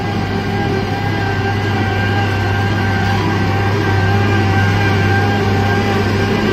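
Road milling machine running steadily: a low diesel engine drone with a steady whine over it.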